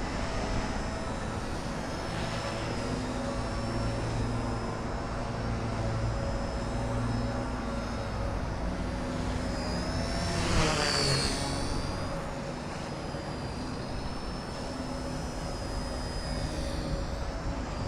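XK K110s micro helicopter's brushless motors and rotors whining steadily in flight, the pitch wavering as it manoeuvres, over low wind noise. About ten seconds in, the whine swells and glides up and down as the helicopter comes close.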